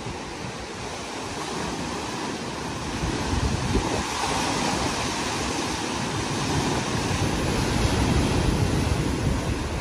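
Rough surf breaking and washing over a rocky shore, the rush of water swelling gradually to a peak near the end, with wind buffeting the microphone.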